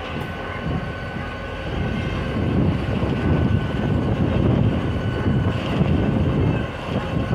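Diesel-electric locomotive of a passing freight train, its engine's deep rumble swelling as it comes alongside about two seconds in and holding loud before easing near the end, over the steady running noise of the train's wheels on the rails.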